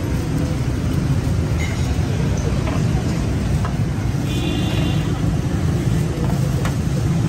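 Steady low rumble of busy street noise, like traffic, with faint background voices and a few light clicks.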